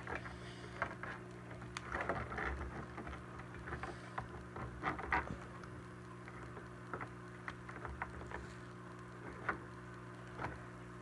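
Plastic Mattel Dimorphodon toy figure being handled and posed by hand: scattered light clicks and rustles, busiest in the first half, over a steady electrical hum.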